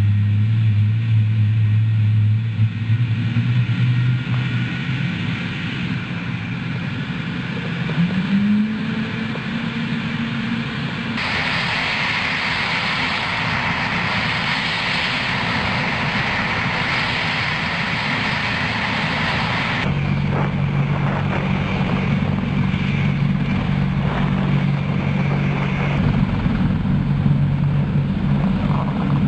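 AH-64 Apache helicopter's engines and rotor running: a steady drone with a low hum that changes pitch several times, and a hiss that comes in about a third of the way through and drops out about two thirds of the way.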